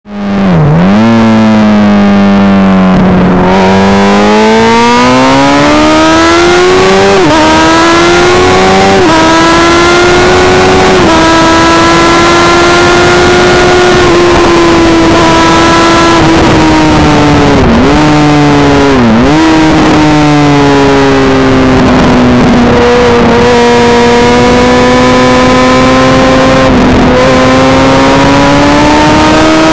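Honda CBR Fireblade's inline-four engine heard onboard at racing speed, its note climbing through the revs and dropping with each gear change before climbing again. Two quick sharp dips in the note come about two-thirds of the way through.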